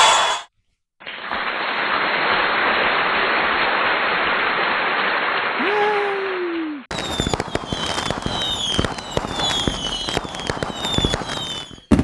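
Fireworks sound effect: a steady hiss for about six seconds, then rapid crackling pops with repeated falling whistles. Each part starts and stops abruptly, as if cut in.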